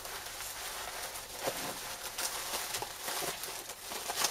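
Plastic bubble wrap rustling and crinkling as it is handled and pulled open around a wrapped part, with small crackles throughout.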